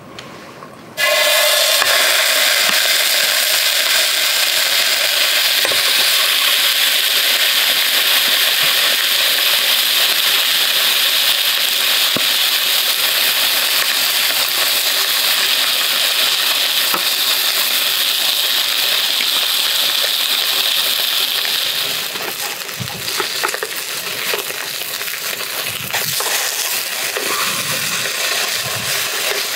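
Lamb chops sizzling in a hot pan. The sizzle starts suddenly about a second in, as the meat goes onto the pan, then runs as a steady hiss with small crackles and eases somewhat past two-thirds of the way through.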